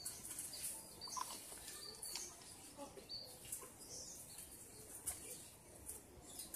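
Quiet outdoor background with birds chirping faintly in the distance: a few short, high chirps scattered through, over a soft steady haze.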